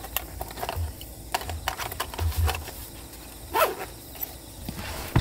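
Camping gear being handled on a wooden table: a string of small clicks, taps and rustles with low thumps. About three and a half seconds in comes a short pitched cry, the loudest moment.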